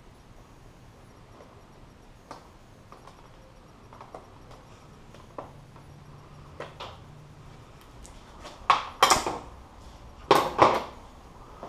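Light scattered clicks from wiring connectors being handled at the motorcycle's front end, then metal hand tools clattering loudly on a cluttered workbench, twice near the end.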